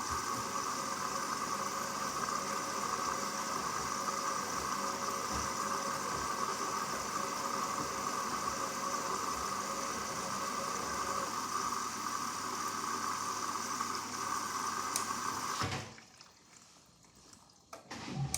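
Hoover Dynamic Next washing machine with water rushing steadily through it mid-cycle, cutting off abruptly near the end, followed by a short knock.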